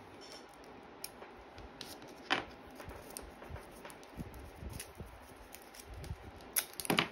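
Small taps and clicks of craft pieces being handled, one sharper click about two seconds in as a metal brooch is set down on the cutting mat, and two more sharp clicks near the end.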